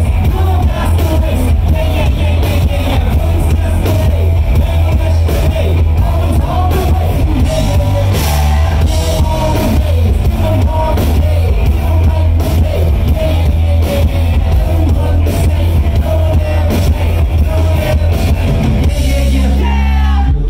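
Live rock band playing loudly: a male singer's vocals over electric guitar, bass guitar and a drum kit, with a heavy, steady bass.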